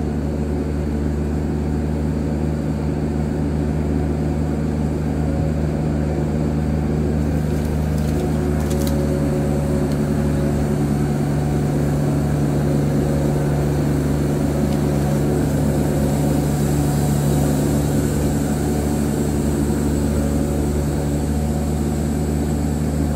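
Wood-Mizer band sawmill running at a steady drone while its band blade saws a slab off a log.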